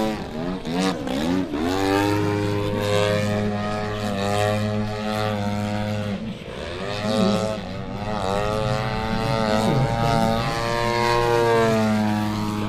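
Desert Aircraft DA-120 twin-cylinder two-stroke petrol engine of a giant-scale Edge 540 model aerobatic plane. It is running smoothly in flight, its pitch rising and falling again and again with throttle changes and passes.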